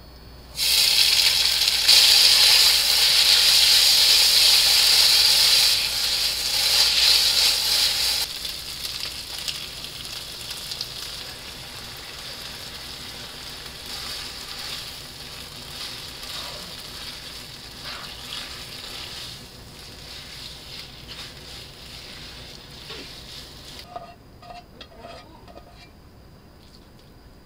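Noodles frying in hot chili oil in a frying pan: a loud sizzle starts suddenly about half a second in. It settles after about eight seconds into a quieter sizzle with light tapping as the noodles and vegetables are tossed with tongs. The sizzle stops near the end, leaving a few light clicks.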